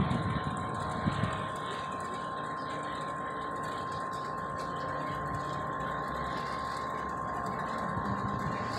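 A small propeller airplane flying overhead: a steady drone with a constant high tone, and low rumbling bursts in the first second or so.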